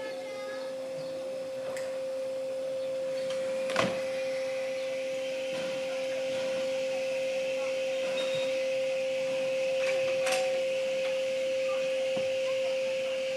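A steady single-pitched electronic-sounding tone holds unchanged throughout, with a sharp click about four seconds in and a fainter click near ten seconds.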